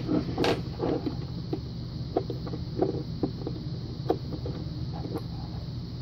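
Allen key turning a large Allen screw inside a Union padlock's steel body, giving scattered light metallic clicks and scrapes about every half second, as the screw that holds the bottom plate on is backed out. A steady low hum runs underneath.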